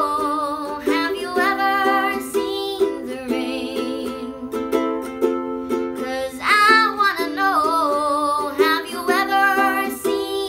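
A girl singing with her own strummed ukulele chords underneath, in several sung phrases over a steady strumming rhythm.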